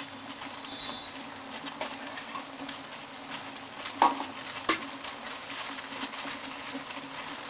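Pot of water heating on a gas stove, with a steady low hum and hiss. About four seconds in, a utensil clinks sharply against the pot twice as coarsely crushed black pepper is added.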